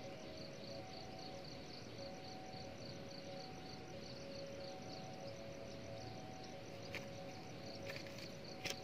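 Insects chirping in an even high-pitched pulse, about four chirps a second, with a faint steady lower tone that comes and goes and a few faint clicks near the end.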